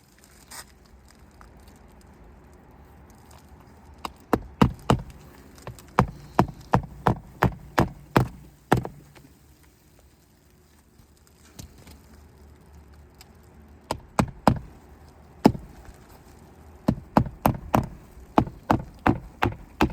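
Hammer blows pounding an asphalt-shingle roof, in quick runs of about two a second with a pause midway. Each hit shakes loose granules from the shingles, a sign the roof is shedding its granule surface.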